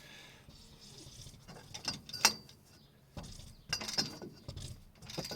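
Ratchet clicking and metal tools clinking as a seized stabilizer-bar bushing bracket bolt is worked loose. Irregular sharp clicks and knocks, the loudest about two seconds in.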